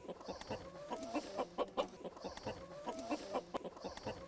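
Crated laying hens clucking: many short, faint calls overlapping, some rising in pitch.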